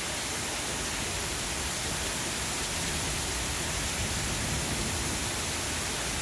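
Heavy thunderstorm rain falling steadily, an even hiss.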